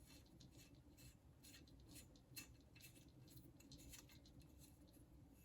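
Near silence with faint, scattered small clicks and scratches of hands handling coaxial cable fittings.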